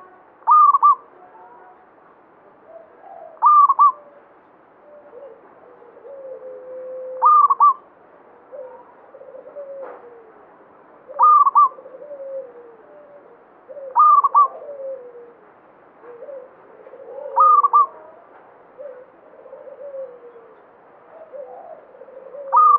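Zebra dove calling: a short, loud, clipped call of two or three quick notes, repeated seven times about every three to four seconds, with fainter, lower cooing between the calls.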